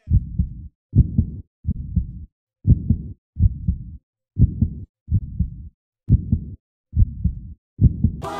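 A heartbeat sound effect: deep thumping beats, a little faster than one a second, with silence between them.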